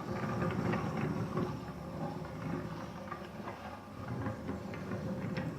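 A train running on its track: a steady low rumble with irregular clicking and clattering over it.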